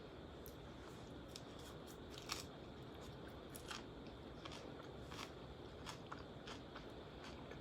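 Faint close-up chewing of crunchy salad such as lettuce and cucumber, with soft crunching clicks at irregular intervals.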